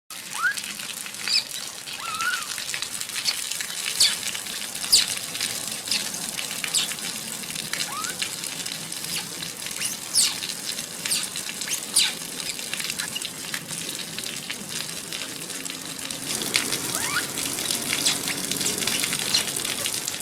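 Heavy rain pouring steadily, a continuous hiss. Short high-pitched chirps come through it every second or two, each sweeping quickly downward.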